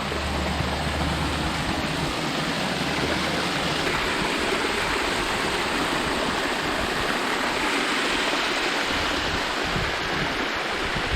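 Steady rush of water from a small stream spilling over a 10-foot waterfall.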